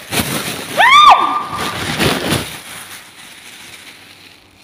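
Plastic bag rustling and crinkling as it is pushed down over a house gecko to catch it, with a woman's short high-pitched cry about a second in. The rustling dies away after about two and a half seconds.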